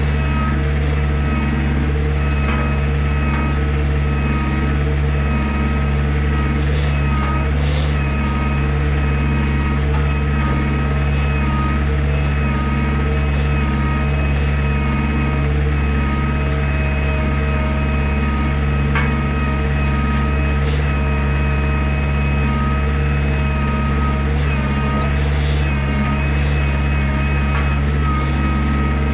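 Skid steer engine running steadily at a constant speed, with a few faint knocks now and then.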